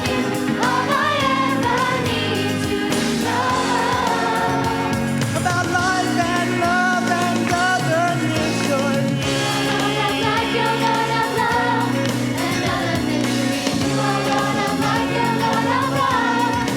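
Youth choir singing a song with instrumental accompaniment.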